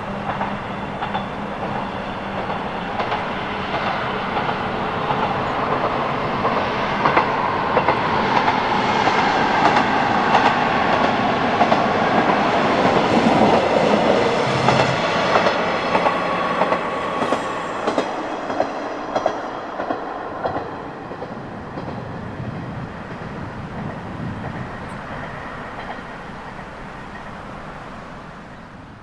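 Kyoto Tango Railway KTR300 diesel railcar passing, its engine running and its wheels clicking over the rail joints. The sound grows louder to a peak about halfway through, then fades away.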